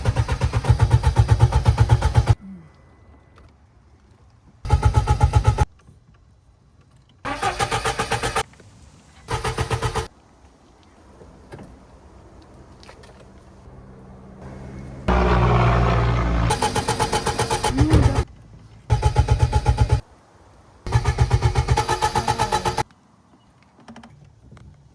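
Lada Niva's starter cranking the engine in about seven separate short bursts, each with a fast, even chugging, and the engine not catching: a car that won't start. Around the middle comes one longer, louder run before the short bursts resume.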